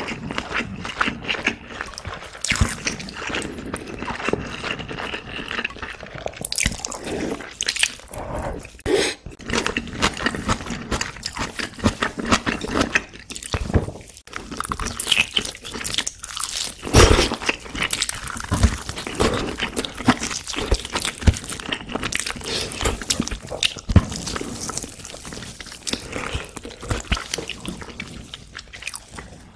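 Close-miked chewing of braised kimchi: wet mouth sounds with dense, irregular clicks and crunches.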